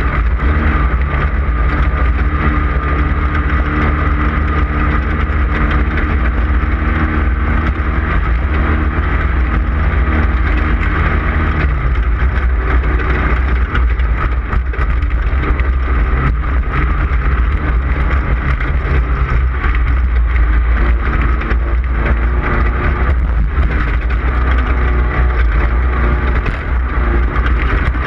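Off-road race car's engine running hard and steadily at racing speed, loud, with a noisy rattling haze over it. The engine note changes about twelve seconds in.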